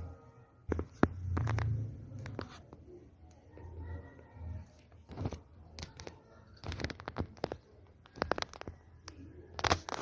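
Irregular scraping, clicking and crackling, like things brushing and knocking together inside a wire cage. There is a dull low rumble between about one and two and a half seconds in.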